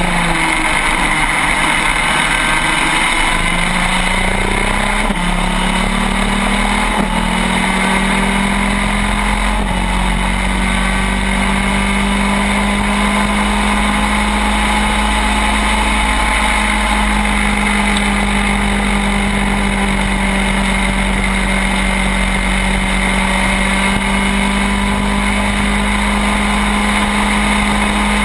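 Two-stroke shifter kart engine recorded on board, running hard. Its pitch climbs in several steps over the first ten seconds as the kart accelerates out of a corner, then holds steady at high revs down the straight.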